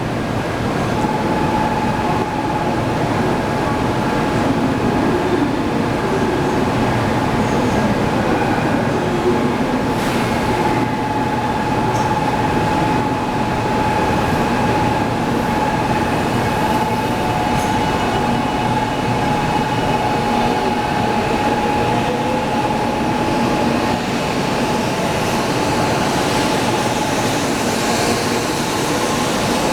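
N700-series Shinkansen train: a steady mechanical rumble and hiss, with a steady high-pitched whine that comes in about a second in and holds without changing pitch.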